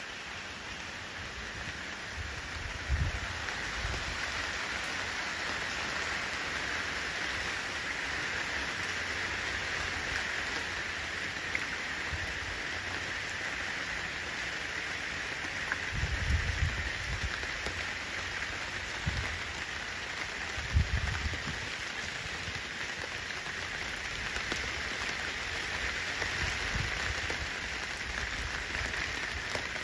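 Steady rain falling into puddles on wet pavement, an even hiss of countless small drops. A few brief low rumbles come and go, near the start and in the middle.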